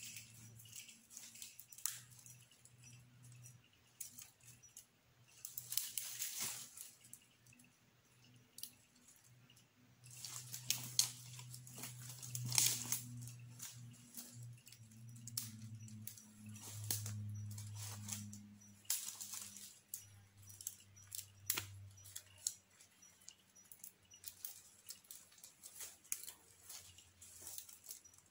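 Dry leaf litter and twigs crackling and snapping by hand as dead sticks are pulled and gathered from the forest floor, with several sharp cracks. Flies buzz close by, their drone coming and going.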